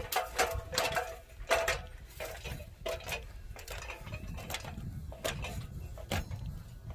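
A series of metallic clinks and knocks, several ringing briefly in the first two seconds, then lighter scattered clicks.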